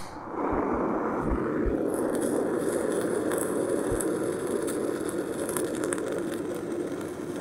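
Handheld kitchen blowtorch burning with a steady, even hiss of flame while it sears slices of raw horse mackerel on a steel tray.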